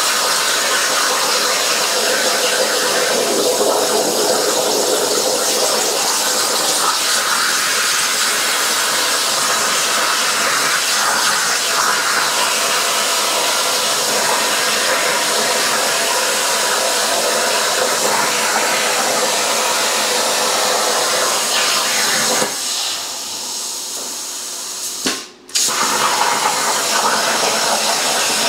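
CNC plasma cutter torch cutting 14-gauge steel sheet: a loud, steady hiss of the arc and its cutting air. About three quarters through the hiss drops lower, cuts out for a moment, then starts again at full strength.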